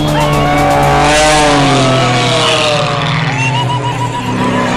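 Aerobatic propeller plane's piston engine making a low pass, loudest about a second in, its pitch sliding down as it goes by.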